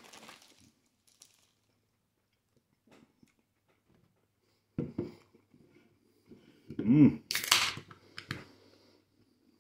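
A man's short grunt about five seconds in, then a groan and a loud hissing breath about two seconds later: pained reactions to the burn of a ghost pepper he has just eaten.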